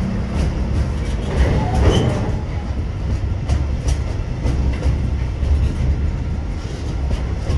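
Container wagons of a freight train rolling past close by: a steady low rumble of steel wheels on rail, with irregular clicks from wheels passing over rail joints, and a brief high wheel squeal about two seconds in.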